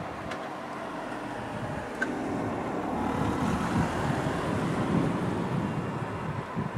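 Distant rumble of an approaching X 2000 high-speed electric train running as two coupled sets, growing slightly louder as it draws nearer.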